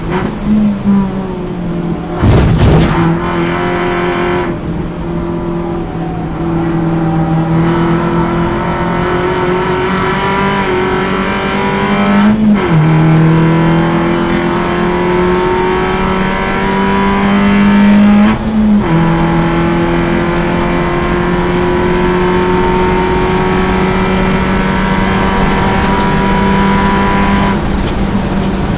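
Onboard sound of an Alfa Romeo Twin Spark four-cylinder race car engine pulling hard, its pitch climbing steadily in each gear. The pitch drops sharply at upshifts about 12 and 18 seconds in. There is a short loud burst of noise about two seconds in.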